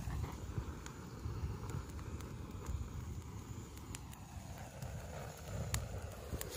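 Wind rumbling on the microphone, with a few faint, sharp crackles as a pile of dry fallen leaves catches fire from a gas lighter.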